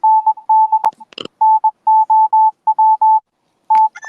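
Morse code beeps played from a soundboard: a single steady tone keyed on and off in short and long beeps, with a sharp click and a brief scratchy burst about a second in.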